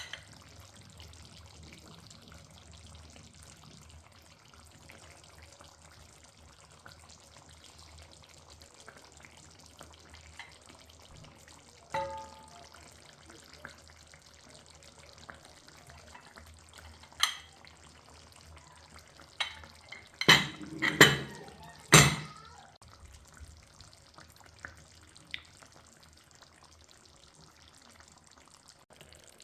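Kitchen clatter over a faint steady sizzle of frying: a single ringing metal clink about twelve seconds in, then a quick run of loud knocks a little after twenty seconds.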